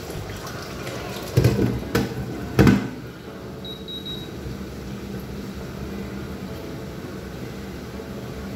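A glass pan lid knocking three times against a frying pan as it is set down, then a short run of high beeps from the induction cooktop's touch controls, over a steady low hum.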